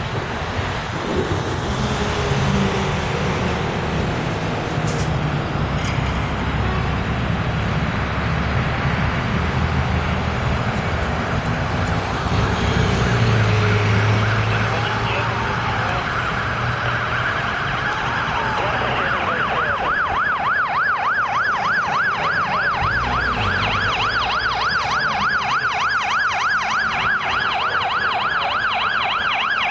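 Street traffic and a heavy diesel engine passing, with a siren wailing faintly in the distance. About twenty seconds in, a fire engine's electronic siren in a fast yelp comes in close, sweeping quickly up and down as the truck approaches.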